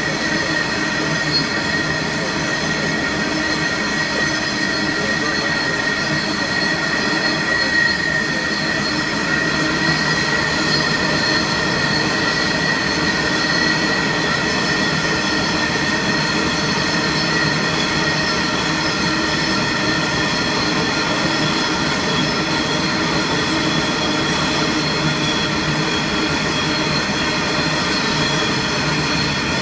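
Heavy vehicle running steadily at speed: a constant drone with a high-pitched whine.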